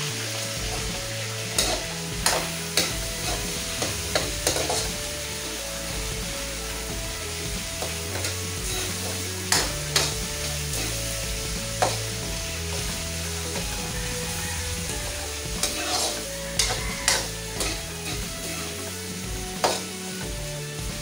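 Food sizzling as it fries in a pan while it is stirred, with a metal utensil clacking and scraping against the pan a dozen or so times.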